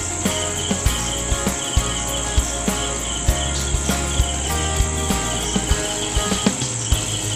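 Background music with a steady beat and changing low notes, under a continuous high insect-like chirping.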